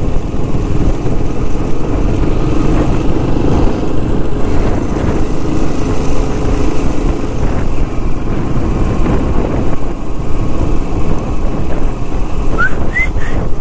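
A motorcycle engine runs at a steady road speed under dense road and wind rumble, heard from the moving bike. Near the end come a couple of short high rising chirps.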